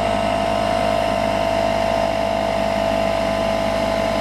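Portable 150 psi air compressor running steadily with a constant whine while it pumps up a motorhome tire.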